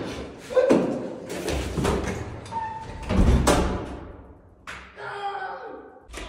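Scuffling and thumps of two people wrestling in a doorway, with grunts and shouts. A door is shut near the end.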